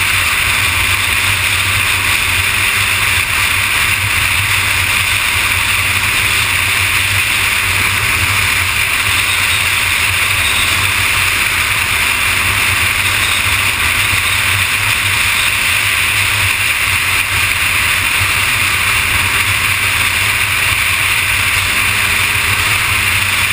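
Steady rush of wind and road noise on the microphone at freeway cruising speed, with the Kawasaki ZX-6R's inline-four engine running low underneath at a steady, even pace.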